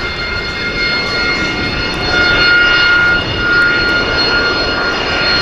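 AV-8B Harrier II's Rolls-Royce Pegasus turbofan running with a steady high whine over a loud rushing roar, swelling louder about two seconds in and again a little later.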